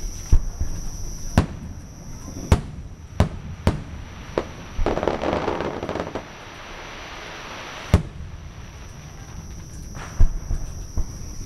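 Aerial fireworks shells bursting: about a dozen sharp bangs at irregular intervals, with a second or so of dense noisy crackle about five seconds in.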